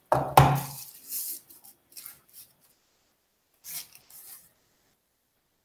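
Tissue paper rustling and crinkling in a few short bursts as a phone is unwrapped by hand, after a short vocal sound near the start.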